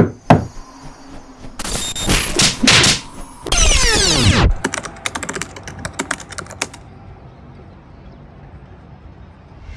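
Intro sound effects: sharp clicks, noisy whooshes and a falling swoosh, then a quick run of keyboard-typing clicks. For the last few seconds there is only faint steady background noise.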